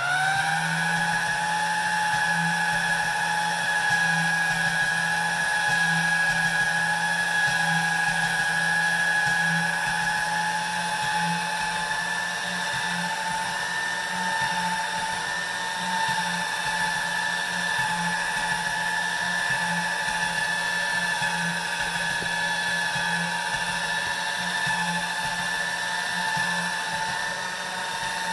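Electric motor attachment on a stainless-steel pasta machine driving the rollers as a sheet of egg-noodle dough feeds through: a steady high whine over a low, slightly pulsing hum, rising in pitch as it spins up at the start.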